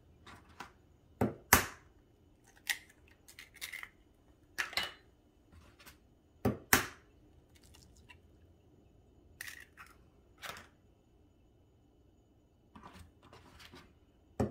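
Eggs being cracked one after another: shells tapped sharply on the rim of a bowl and pulled apart, giving short crisp clicks every second or so, some in quick pairs.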